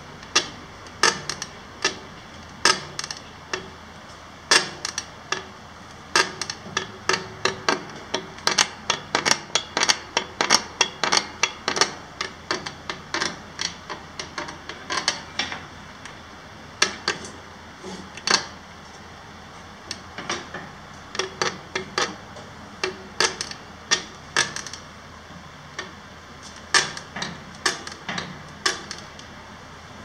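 Suspension of a BOB Ibex bicycle trailer screeching each time it is worked up and down by hand: runs of short, sharp noises, several a second, with brief pauses. The owner suspects it needs lubrication or that some screws are too tight.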